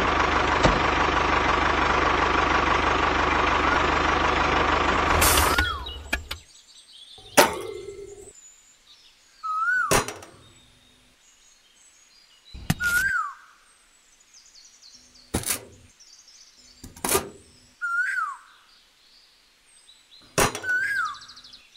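A steady tractor engine sound runs and cuts off suddenly about five seconds in. After that a short rising-and-falling bird chirp repeats every few seconds, with light clicks and knocks as small plastic parts are set down on the toy trailer bed.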